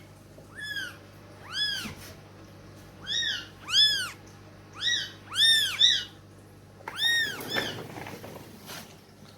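Kittens mewing: about ten short, high-pitched calls, each rising and then falling, at roughly one a second, some overlapping at different pitches.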